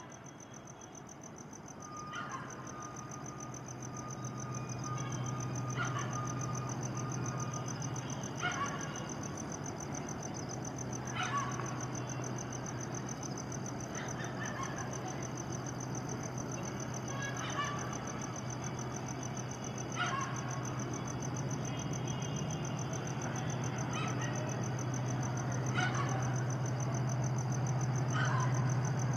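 EMD WDP-4D diesel locomotive approaching from a distance at speed: a low engine drone growing steadily louder. Crickets keep up a steady high trill, and a bird gives a short sharp call about every three seconds.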